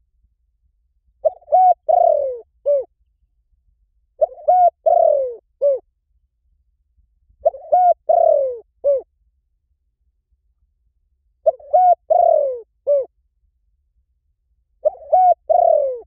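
Spotted dove cooing: a phrase of four or five low coos, one of them drawn out and falling in pitch, repeated five times about every three to four seconds.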